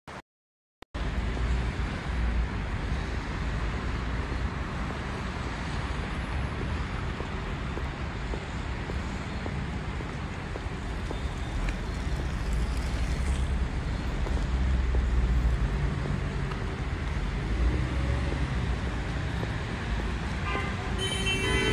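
City street traffic: a steady wash of passing cars with a deep low rumble, starting after about a second of silence. A pitched tone comes in near the end.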